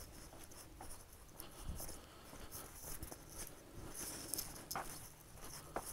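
Faint footsteps and scuffing on a dry dirt trail: irregular soft steps with a few sharper ticks.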